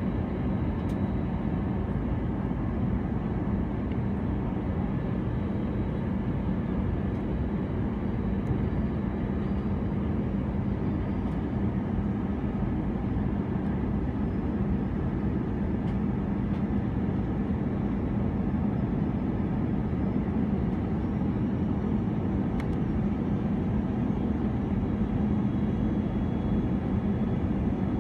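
Airbus A319 airliner cabin noise in flight on approach, heard from a window seat by the wing: a steady drone of engines and rushing air, with a constant low hum.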